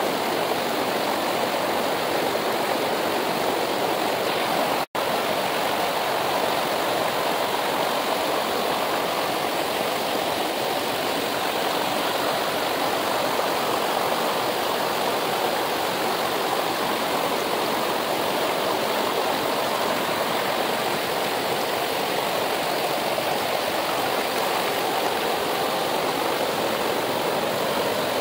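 Rushing water of a mountain river, a steady rush that cuts out for an instant about five seconds in.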